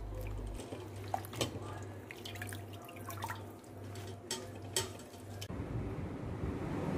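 Leafy greens being swished by hand in a steel bowl of water and lifted out to drip into a mesh strainer, with small splashes and drips. About five seconds in it gives way to steady room noise.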